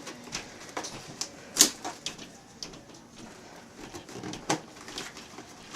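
Scattered light clicks and taps, irregular, the sharpest about a second and a half in and again near the end, as a plastic toy coffee maker is handled and set up.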